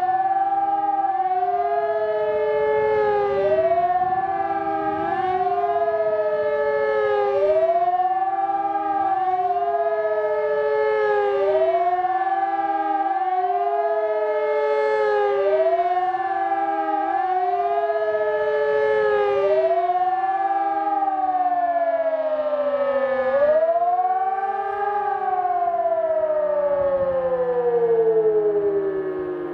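An ECN electronic siren and an E57 motor siren sounding the German "Warnung" alarm together: a wailing tone rising and falling about every four seconds. About 23 seconds in, the cycling stops and the pitch slides steadily down as the sirens wind down at the end of the signal.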